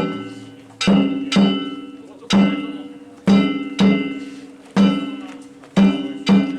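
Danjiri float's festival percussion: a metal gong (kane) and a drum struck together in a slow, uneven beat, about nine strokes, some falling in pairs. Each stroke rings on for most of a second.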